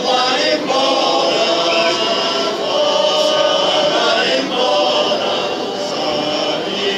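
Men's choir singing in parts, holding sustained chords that shift from note to note, amplified through stage microphones and speakers.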